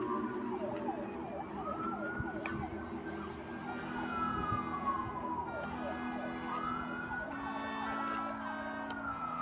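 A siren wailing, its pitch rising and falling slowly over a few seconds at a time, over steady held tones.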